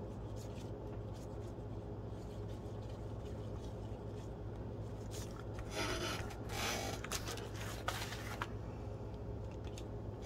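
Paper rubbing and rustling as a hand handles and presses a glued collage sheet onto a journal page, in a few short bursts about six to eight seconds in, over a steady low hum.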